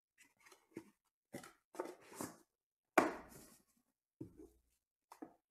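Trading cards and a cardboard box being handled on a table: a series of short rustles and taps, with a louder thump about three seconds in as something is set down.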